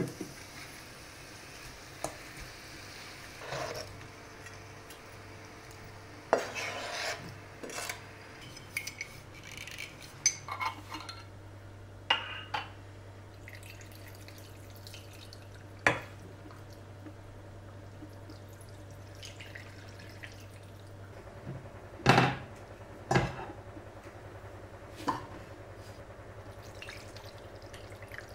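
Stainless-steel pots, a pan and metal tongs clinking and knocking as beef shanks are handled and moved about in a pot on a cooktop. The knocks are scattered, with two sharp ones about a second apart in the last third, over a faint steady low hum.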